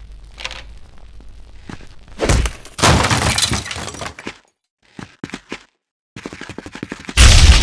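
Dubbed-in cartoon sound effects: a shattering, breaking crash about two seconds in. After a short gap with a few clicks and a quick run of ticks comes a louder sudden blast near the end that dies away slowly.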